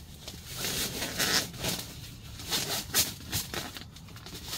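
Rolled-up air mattress and its nylon carry bag rustling and crinkling as the deflated mattress is stuffed into the bag, loudest about a second in and again about three seconds in.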